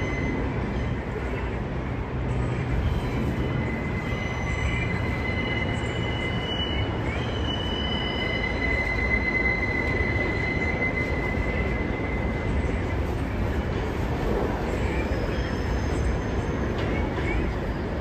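R143 subway car running along the track, heard from inside the car: a steady rumble of wheels on rail, with thin high-pitched wheel squeal coming and going, held longest and loudest about halfway through.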